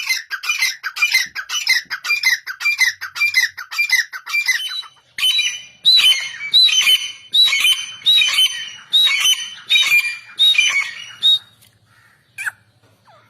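Grey francolin (teetar) calling: a fast series of short, falling notes, about four a second, then a louder series of higher, hooked notes about two a second. The calling stops shortly before the end, with one more lone note after it.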